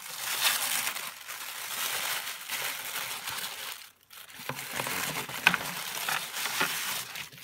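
Tissue paper rustling and crinkling as hands pull it open and fold it back, with a brief pause about four seconds in and one sharp tap shortly after.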